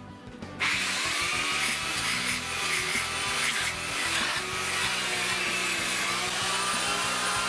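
Belt sander running and sanding the face of a laminate board, a steady rasping that starts suddenly about half a second in.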